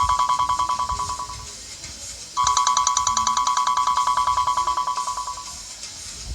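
Sony Xperia Tablet Z4 ringtone: a rapid trilling electronic tone that starts loud and fades out over about three seconds. It stops briefly and starts again, repeating about every four seconds.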